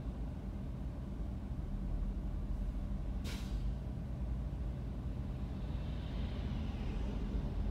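Road traffic at an intersection: a steady low engine and road rumble, with one short, sharp hiss of a heavy vehicle's air brakes about three seconds in. A truck passes near the end, adding a faint whine.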